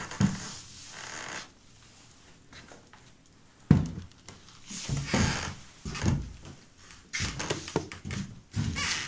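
Footsteps on an old wooden plank floor: a run of uneven thuds and short scrapes as the boards creak under each step, the sharpest knock coming just before the middle.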